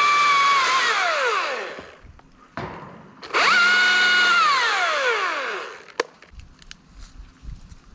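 Chainsaw running at full speed with a high, steady whine, winding down about two seconds in. After a short pause it revs up again for about two more seconds and winds down. A single sharp snap follows about six seconds in.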